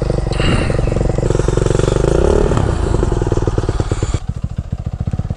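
Dirt bike engine idling nearby, a rapid, even putter of firing pulses with a brief rise in pitch about two seconds in.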